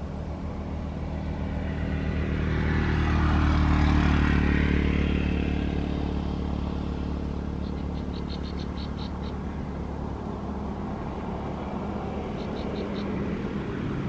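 A motor vehicle passing: a steady low engine hum that swells to a peak about four seconds in and then fades away.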